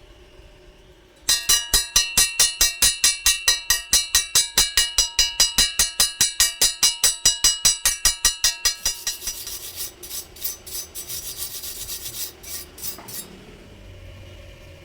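Fast, even scraping strokes on steel, about five a second, with the metal ringing at each stroke. A little past halfway the strokes turn irregular and duller, and they stop shortly before the end.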